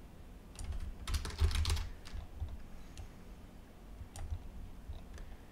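Typing on a computer keyboard: a quick run of keystrokes about a second in, then a few scattered single clicks.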